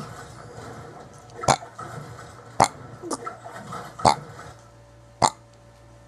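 A boy burping in a row: four short, sharp burps about a second apart, with a softer one among them.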